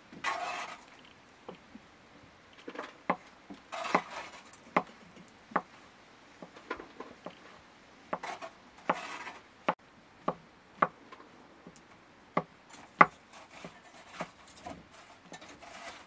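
Kitchen knife chopping mushrooms on a wooden cutting board: irregular sharp knocks of the blade on the wood, roughly one a second, with a few short swishing scrapes between them.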